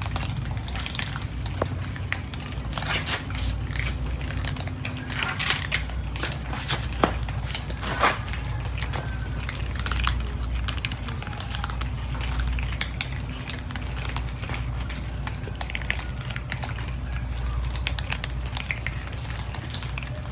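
Many cats crunching dry kibble together: a dense crackle of small clicks with a few louder clicks, over a steady low rumble.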